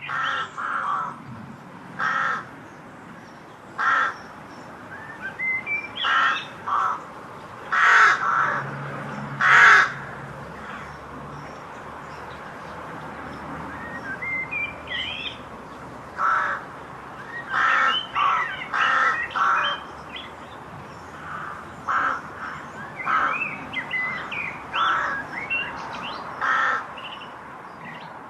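Crows cawing, loud harsh caws in ones and short runs, with a common blackbird singing quieter fluting, warbling phrases in between: full song, unseasonal for November.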